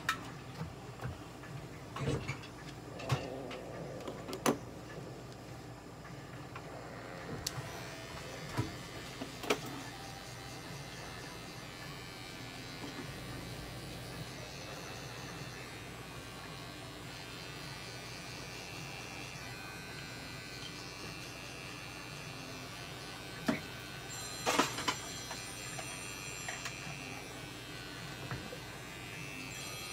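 Small cordless electric pet trimmer buzzing steadily as it shaves the hair between a cat's paw pads. Sharp clicks in the first several seconds, and a few louder clicks near the end.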